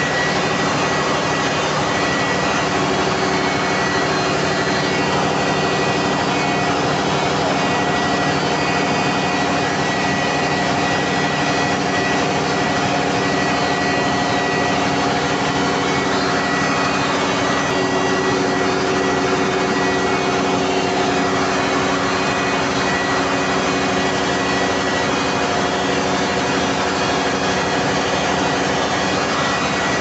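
Standby diesel generator set running steadily off-load, a loud even engine drone with a steady high whine on top; it is up to voltage and frequency (417 V, 50 Hz) but supplying no power.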